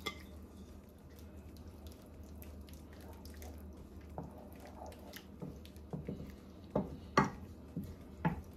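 Hot water poured from a bowl into a pan of vegetables and ketchup, then a wooden spoon stirring the watery sauce in the ceramic-coated pan, with a few louder knocks of the spoon against the pan near the end.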